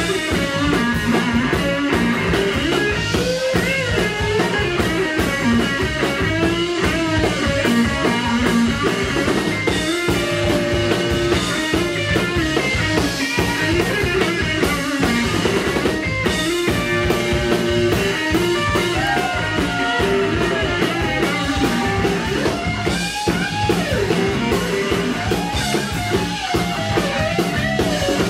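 Live blues-rock band playing: an electric guitar plays a lead line with bent notes over a drum kit, loud and steady.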